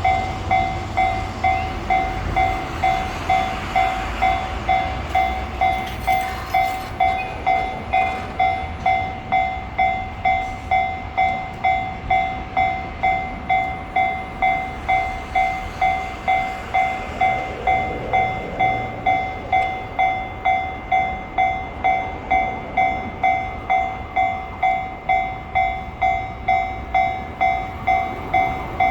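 Japanese railway level crossing warning bell ringing, an even two-tone electronic clang at about one and a half strokes a second, over the low rumble of a train moving on the line.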